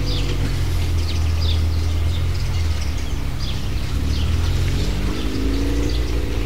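Small birds chirping outdoors, short high chirps repeating irregularly about twice a second, over a steady low rumble.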